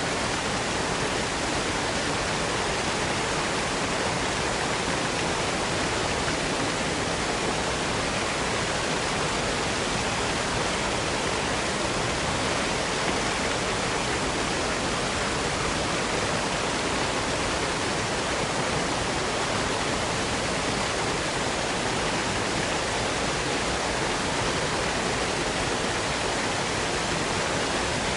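Waterfall: a steady, even rush of falling water that holds the same level throughout, with no distinct splashes or changes.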